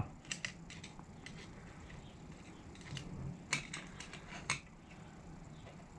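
Light, scattered clicks and taps of a thin rod poking inside the bore of a tractor hydraulic valve body, working loose a small check ball and pin retainer; a few clicks just after the start and a handful more around the middle.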